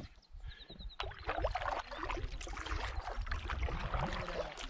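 Kayak paddle strokes in the water beside a Swift packboat: splashing and trickling that set in about a second in, after a sharp click.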